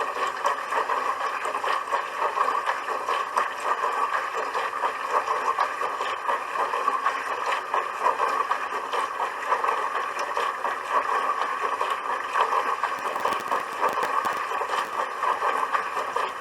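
Dishwasher running, a steady rush of water churning and splashing inside it.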